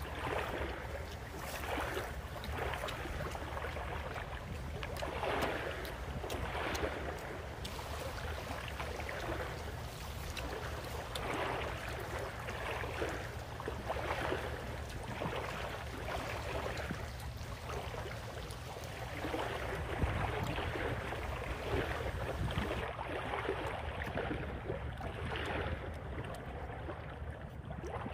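Wind buffeting the microphone outdoors: a steady low rumble with noisy gusts swelling every second or two.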